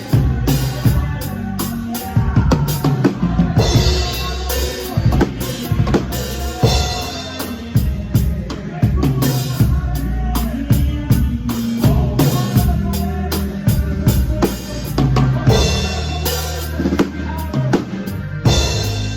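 Live band music with the drum kit to the fore: a steady beat of bass drum and snare with crash cymbals now and then, over a moving bass line and pitched melody instruments.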